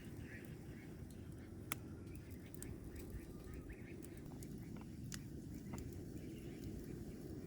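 A wood fire crackling now and then, a few sharp isolated pops over a steady low rumble, with faint bird chirps in the background.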